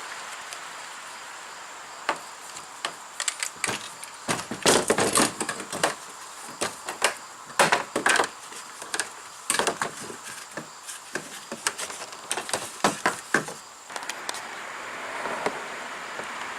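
Irregular knocks and clatters of a homemade PVC-pipe kayak cart being handled, its parts bumping together, with the sharpest strikes about five and eight seconds in. Near the end the knocks stop and a steady rushing noise rises, like passing traffic.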